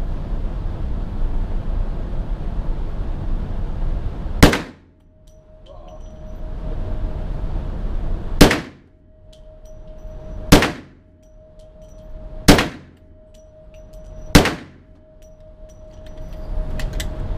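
Five single gunshots fired one at a time on an indoor shooting range, about two seconds apart, the first about four and a half seconds in. Each is a sharp crack with a ringing tail, over steady background noise.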